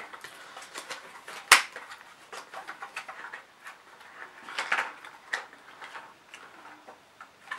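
Handling noise from a silicone ice cube tray being pushed back into its cardboard packaging: scattered rustles and clicks of card and rubbery silicone, with one sharp knock about one and a half seconds in.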